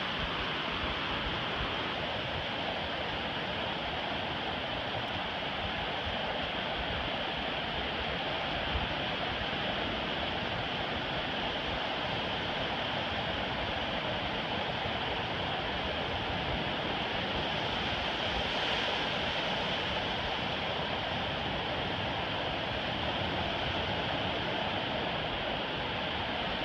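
Ocean surf breaking and washing up a flat sandy beach, a steady rush of waves that swells a little about two-thirds of the way through.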